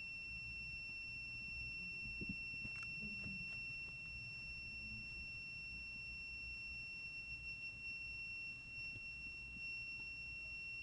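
Toy electronic buzzer sounding one steady high-pitched tone, run on electricity stored in a capacitor, with a few faint clicks about two to three seconds in.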